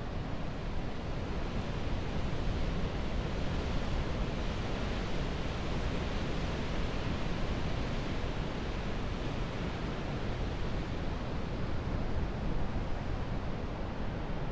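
Ocean surf breaking against rocks, heard as a steady wash of noise with no distinct breaks.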